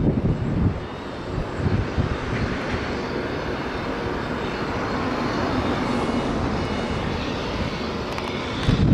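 Jet aircraft engine noise on an airport apron: a steady rush with a faint high whine. It swells a little past the middle, and low rumbling gusts come in the first second or so.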